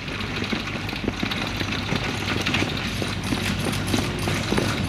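A pair of carriage horses going past pulling a marathon carriage: irregular hoofbeats on grass with the rattle of the carriage and harness, over a steady low engine hum.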